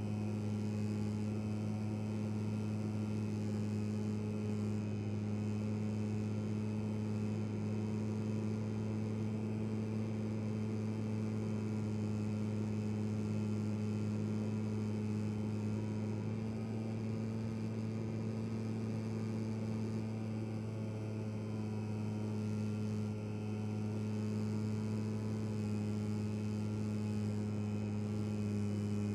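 Steady hum of a radio-controlled P-47 model's electric motor and propeller in flight, picked up onboard, with a rush of wind noise over it; the pitch holds nearly constant with a slight dip in level about two-thirds of the way through.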